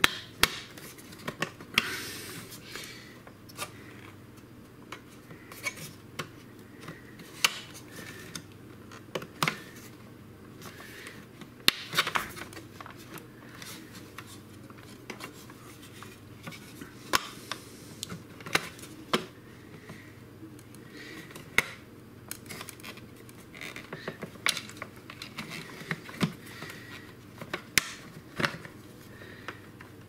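Hard plastic parts of a Miele vacuum cleaner's top cover clicking and knocking as they are handled, prised apart and pushed back into place by hand. Sharp, irregular clicks spread throughout, a few louder snaps among them.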